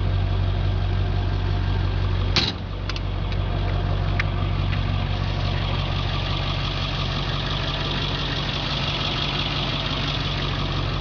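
International 4700 medium-duty wrecker's engine idling steadily, with a single sharp clack about two and a half seconds in and a few lighter clicks after it.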